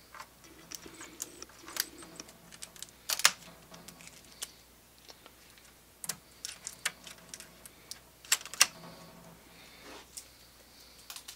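Scattered plastic clicks and taps from hands working on the Brother MFC-L8900CDW laser printer's pulled-out drum and toner drawer. The sharpest knocks come about three seconds in and twice in quick succession about eight and a half seconds in.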